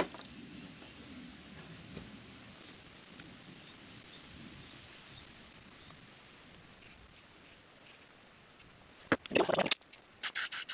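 A steady, high insect chorus of crickets, with a brief loud noisy burst and sharp clicks about nine seconds in.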